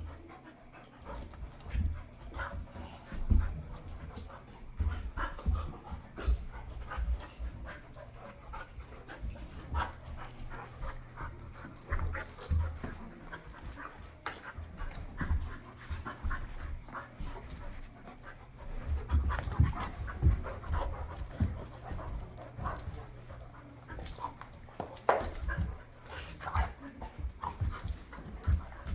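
Two dogs play-fighting: heavy panting with scuffling and irregular low thumps as they tussle.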